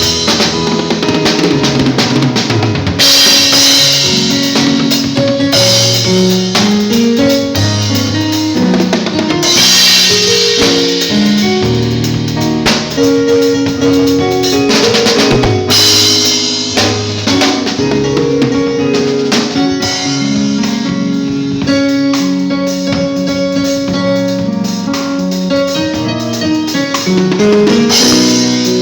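Drum kit played freely through a sound check, with kick, snare and cymbal crashes and a bass line stepping along underneath.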